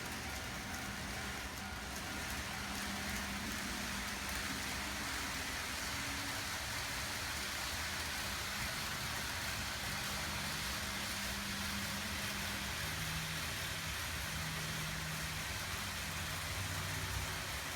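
N-gauge model trains running on a layout: a steady rolling rattle of wheels on track, with a low motor hum that comes and goes and shifts in pitch as the trains change speed.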